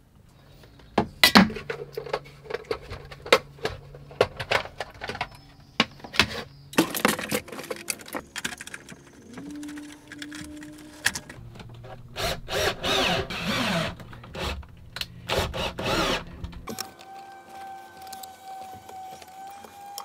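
Hands and tools working the wiring inside a transfer switch box: scattered clicks, taps and rattles of wires, wire nuts and a screwdriver over a steady low hum. Near the end the hum gives way to a higher, steady tone.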